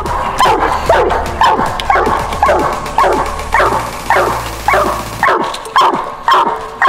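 A coonhound barking treed at the foot of a tree: a steady chop of short barks, each falling in pitch, about two a second. It is the signal that the raccoon has been run up that tree.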